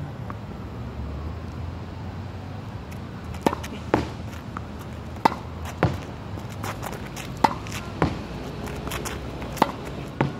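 Tennis ball rally against a practice backboard: sharp pops of the racket hitting the ball and the ball striking the wall, often two about half a second apart, repeating every couple of seconds from about three and a half seconds in, over a steady low rumble.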